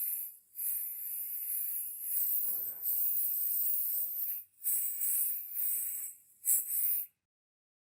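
Spray hissing in several bursts of about half a second to two seconds each, with short breaks between them.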